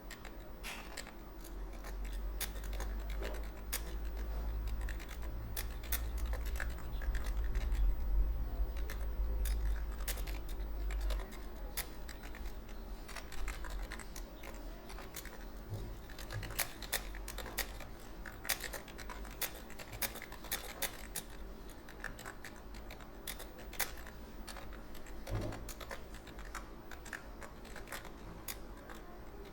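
Computer keyboard being typed on steadily, an irregular patter of key clicks several a second, with a low hum underneath during the first third.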